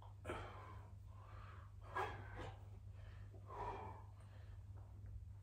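A man breathing hard through a set of sit-ups, one forceful breath with each rep, three in all about a second and a half to two seconds apart. The second breath is the sharpest. A steady low hum runs underneath.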